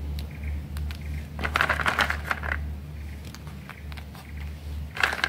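Hand arranging soaked black sapote seeds on damp cocopeat: crackly rustling and light clicks of seeds and fibre, in a burst about a second and a half in and again near the end, over a steady low hum.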